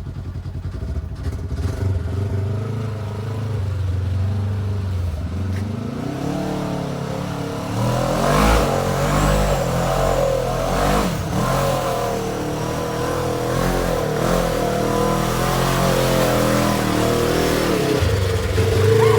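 An off-road rig's engine revving and labouring as it climbs a steep rock chute, the revs rising and falling in surges. It gets louder about eight seconds in, with a couple of sharp knocks.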